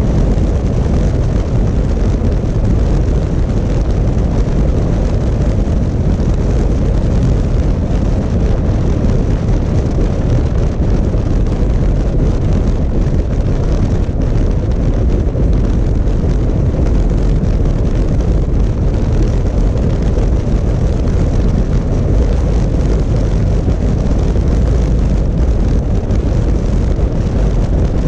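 Steady, loud wind rush and low rumble of a 2018 Honda Africa Twin DCT motorcycle under way, heard from the camera on the bike. The sound is even throughout, with no revving or gear changes standing out.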